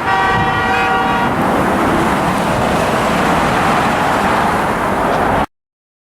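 A passing vehicle's horn sounding a long honk that stops about a second and a half in, the drivers' answer to a 'honk to impeach' roadside protest. Steady freeway traffic noise runs under it and cuts off suddenly near the end.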